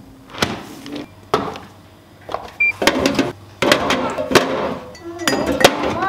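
Plastic food-storage container's lid pressed down and clicking shut, followed by a run of rattling, knocking and light clinks as containers and items are handled and set down.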